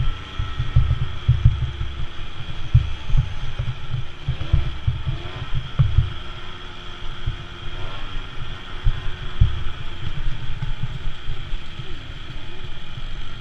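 Small 50-70cc youth racing quad's engine running hard, its pitch dipping and rising a few times as the rider works through the turns, under heavy wind buffeting on the microphone.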